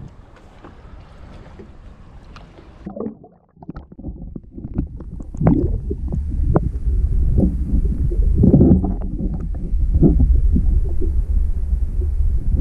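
A pole-mounted action camera plunged under the sea surface about three seconds in: the thin wind-and-sea noise above water gives way to a loud, muffled underwater rumble, with water sloshing and knocking against the camera housing.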